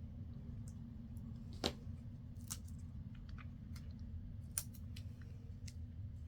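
Faint scattered clicks and crinkles of small transparent plastic butterfly stickers being peeled off their backing and handled, over a steady low hum.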